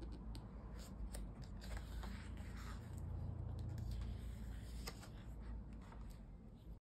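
Paper pages of a printed zine turned and handled by hand: crisp rustles and light page flicks over a low rumble, cutting off abruptly near the end.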